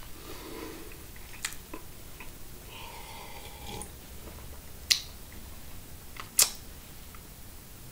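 Drinking from a mug: a short sip-like sound, then two sharp clicks about a second and a half apart, the loudest sounds here, with a few small handling ticks around them.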